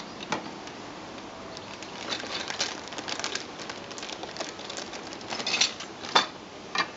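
Small clear plastic bag and silicone-grease lubricant packet rustling and crinkling as they are handled and opened with gloved hands, in irregular clicks and crackles. The loudest crackles come about five and a half to six seconds in.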